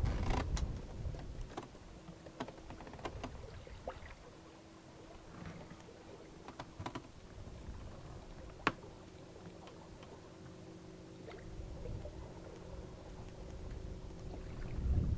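Small sailing yacht under way on a river: wind rumbling on the microphone at the start and again near the end, with scattered light clicks and taps and one sharper tick about nine seconds in, over a faint steady hum.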